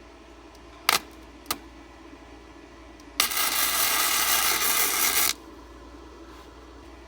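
Two sharp metallic clicks, then a flux-core wire-feed welder running a short weld of about two seconds, a loud steady crackling hiss that starts and cuts off suddenly.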